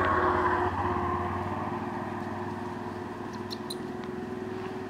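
A motor vehicle's engine running steadily, loudest at the start and slowly fading away, with a couple of faint ticks about three and a half seconds in.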